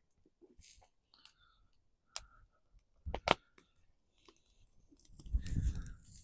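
A few sharp clicks of cooking utensils handled on the campfire grill as pork chops are checked for turning, with a double click about three seconds in. A brief low rumble follows near the end.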